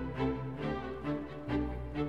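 Background music: an instrumental piece with bowed strings playing a moving melody over a held low bass note.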